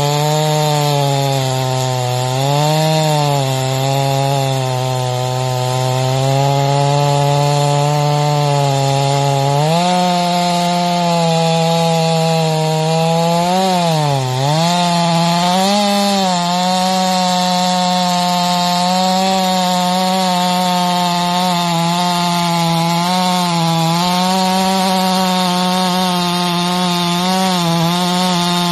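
Ported Stihl MS461 two-stroke chainsaw with a 36-inch bar and semi-chisel chain cutting through a large cypress log under load, its engine running steadily. The engine speed dips briefly around three seconds in and again around fourteen seconds in.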